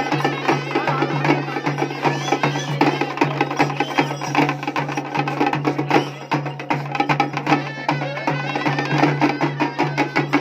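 Traditional folk music: a steady low drone pulsing in an even beat under rapid percussive clicks, with a wavering melody line above.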